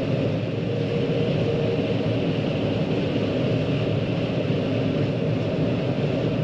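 John Deere 9500 combine running steadily, a constant low machine hum that keeps an even level throughout.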